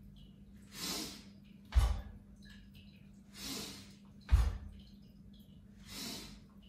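Rhythmic qigong breathing: a soft drawn-in breath, then under a second later a short, forceful exhale with a low thump. The cycle repeats about every two and a half seconds.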